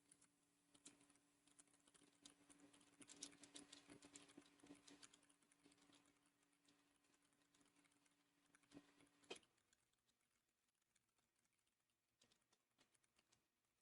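Faint typing on a Keychron K3 v2 low-profile mechanical keyboard with optical red switches: soft, irregular keystroke clicks, with a quick run of them about three to five seconds in and only scattered, very faint taps later.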